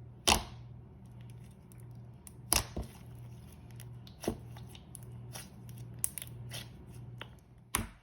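Thick slime being worked by hand, with several sharp pops and clicks at irregular intervals over a faint steady low hum.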